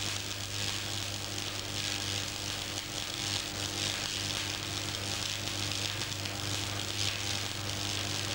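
Manual metal arc (stick) welding arc crackling and sizzling steadily, swelling and easing every second or so, over a steady low hum.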